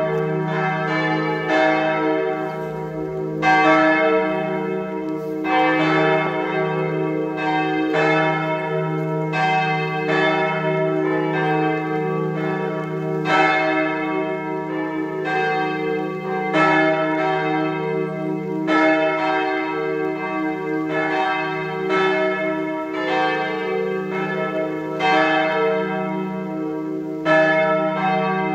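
Church bells ringing together in a partial peal, only some of the tower's bells sounding: strikes about once a second in an irregular, overlapping pattern, their tones ringing on steadily between strikes.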